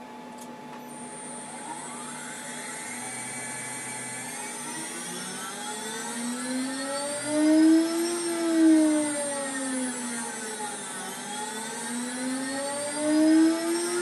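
Water-cooled CNC router spindle (24,000 rpm top speed) running with a whine that changes pitch as its speed is varied: it rises for about eight seconds, falls for about three, then climbs again to full speed near the end.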